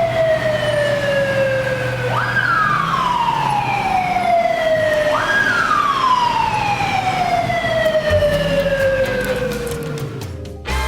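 Electronic siren of a Honda NT1100P police motorcycle wailing: each cycle jumps up quickly in pitch, then slides slowly down over about three seconds, repeating three times. It cuts off near the end with a brief thump.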